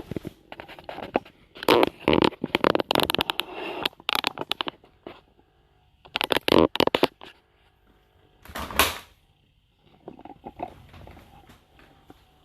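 Bursts of clattering, knocking and rustling, in three clusters with short quiet gaps between.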